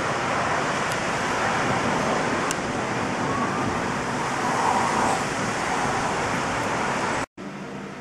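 Thunderstorm downpour of rain and hail, a loud steady wash of noise with a few sharp ticks of single strikes. It cuts off suddenly near the end, and a quieter hiss with a low steady hum follows.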